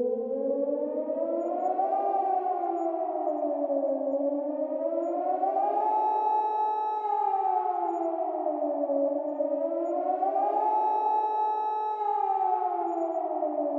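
Civil defense warning siren sounding an attack alarm: a wail that rises and falls slowly in pitch, three times, about every 4 to 5 seconds, sometimes holding briefly at the top, with a lower and a higher tone sounding together.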